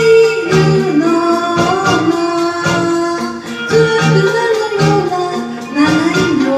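A song: a singing voice carrying the melody over instrumental accompaniment with a steady beat.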